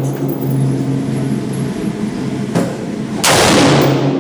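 Two rifle shots from a Bushmaster ACR firing .223 Remington, a little over half a second apart, the second louder with a ringing tail, over a steady low hum.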